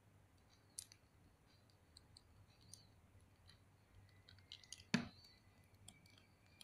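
Faint scattered clicks and light rubbing of small action-figure armor pieces as the belt armor is handled and clasped onto the figure's waist, with one sharper snap-like click about five seconds in.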